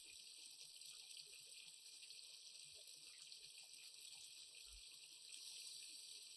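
Faint, steady sizzling hiss with occasional tiny crackles from the rice, mushroom and onion stuffing frying in the pan with added water, barely above near silence.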